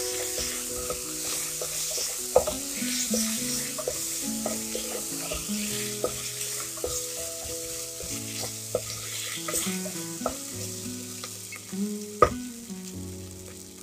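Onions and ginger-garlic paste sizzling in hot oil in a pressure cooker as they are stirred, with spoon scrapes and a few sharp knocks of the spoon against the pot, sharpest about two seconds in and near the end. Soft background music plays underneath.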